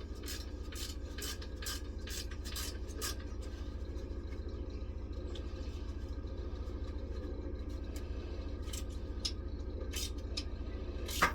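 A hand tool tightening a Tyron safety band's clamp inside a caravan wheel rim, giving runs of quick metallic clicks near the start and again towards the end, with one sharper click near the end. A steady low hum runs underneath.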